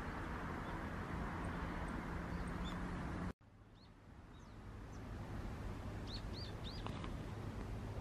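Thin, high calls of small birds, faint and scattered, with a quick run of about four chirps a little past halfway. They sit over a steady outdoor background of hiss and low hum, and the sound cuts out abruptly about a third of the way in before it resumes.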